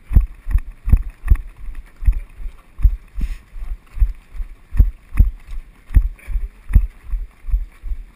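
Running footfalls jarring a body-worn GoPro camera: a steady beat of low thuds, about two and a half a second, at a jogging pace.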